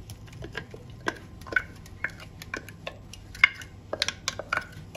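A spoon scraping and knocking against a glass bowl as a thick blended tomato, onion and garlic purée is scraped out into a pan: a run of irregular clicks and knocks, busiest in the second half.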